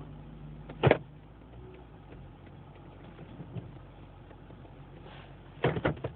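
Actuator in a 2006 Lexus GS430 clunking as the shifter is cycled with the car standing still: one sharp clunk about a second in, then a quick cluster of three or four clicks near the end, over a low steady hum.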